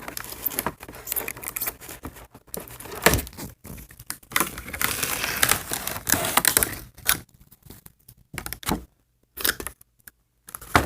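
Doll box packaging being pulled apart by hand: irregular tearing, crinkling and clicks, densest in the middle, then sparser handling with short pauses near the end.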